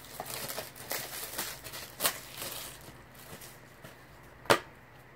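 Plastic Blu-ray cases being handled: light rustling and small clicks for the first few seconds, then one sharp, louder clack of a case about four and a half seconds in.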